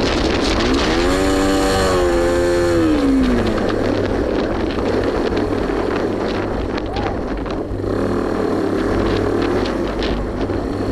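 Motorcycle engine revving: its pitch climbs, holds, then drops back in the first few seconds, over steady road and wind rumble.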